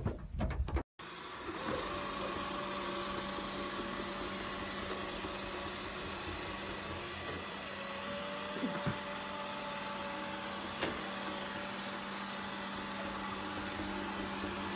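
Robot vacuum cleaner running with a steady hum, starting about a second in after a brief break; two light clicks near the middle.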